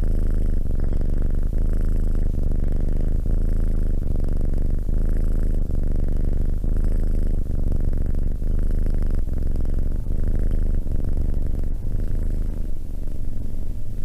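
Domestic cat purring, loud and continuous.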